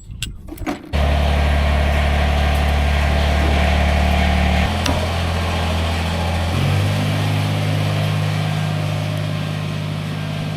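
Mercury Verado 400 outboard engine catching abruptly about a second in and then running steadily at idle. Its pitch shifts a couple of times as the idle settles.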